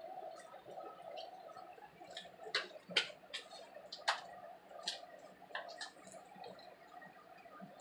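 Slime being mixed: faint, irregular wet clicks and pops, about a dozen spread unevenly, the loudest around three and four seconds in.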